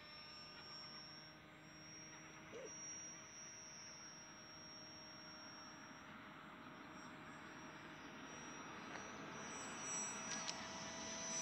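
Twin-jet RC model plane flying at a distance: a faint, steady high-pitched whine from its jet units that grows louder near the end as it comes closer.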